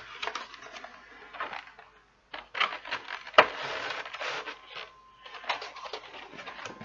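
Clear plastic blister packaging and a cardboard box being handled: irregular crinkling and rustling with scattered clicks, briefly quiet around two seconds in, and a sharp click a little past three seconds.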